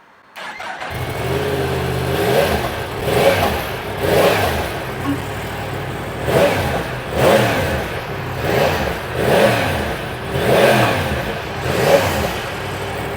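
Yamaha MT-10SP's crossplane inline-four starting up about a second in, then idling and being revved in a string of short blips, breathing through the stock catalytic converter with the exhaust valve servo still connected.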